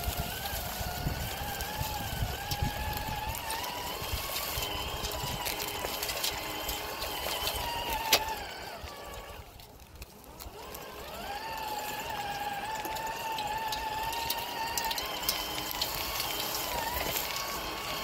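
Whine of a 1/24-scale RC crawler's small electric motor and gears as it drives, wavering slightly with the load. It dies away about nine seconds in, just after a sharp click, then comes back rising in pitch and runs steadily again.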